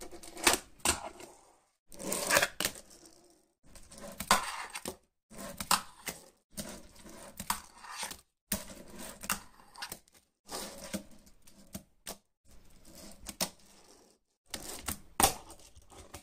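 Fingerboard rolling over wooden ramps and boxes, with its wheels rushing on the wood and sharp clacks as the board pops and lands. It comes as a run of short clips, each cut off abruptly into silence every second and a half to two seconds.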